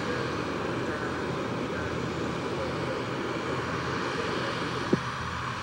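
Steady jet noise from an Airbus A320neo's engines as it rolls out on the runway after landing, with one short sharp click near the end.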